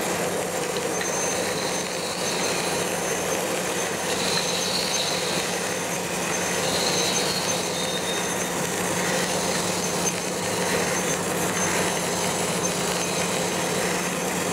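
Reid surface grinder running: the spindle and table drive hum steadily while a 46H coarse-grain wheel grinds a metal plate on a light finish cut, with a hissing grind that swells every few seconds as the table carries the part back and forth under the wheel.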